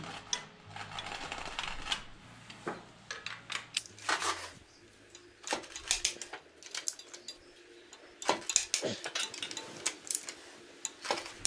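Metal clicks and clinks of a wrench and socket working the flywheel bolts, in short irregular bursts that come thickest about eight to nine seconds in.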